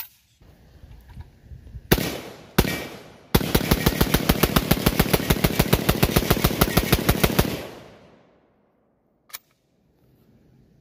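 Zastava ZPAP92 AK-pattern pistol firing semi-automatic: two single shots, then a fast string at about seven shots a second for about four seconds. A single sharp click follows a couple of seconds after the string stops.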